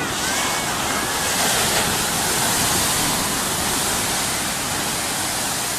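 Heavy shore-break surf: a steady rush of breaking whitewater after a big wave comes down.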